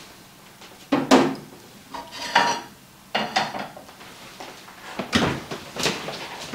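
Pans and cooking utensils clattering: about five separate knocks and scrapes, roughly a second apart.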